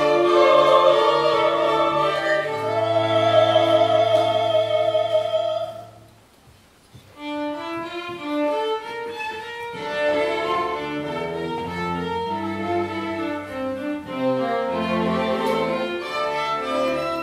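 Soprano singing with vibrato over a string ensemble of violins and cello. About six seconds in, the voice and strings stop together for a brief pause. The violins and cello then play on alone.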